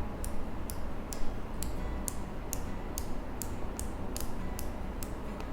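Headband slider of Elysium Signature HyperBass 2 over-ear headphones being extended notch by notch: a row of about a dozen evenly spaced small clicks, two to three a second, each one an adjustment detent of its 13 levels.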